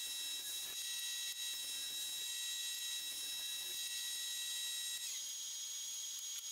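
Grizzly jointer-planer running with a steady high whine while a board is jointed across its cutterhead. A little after five seconds the whine glides down to a slightly lower pitch and settles.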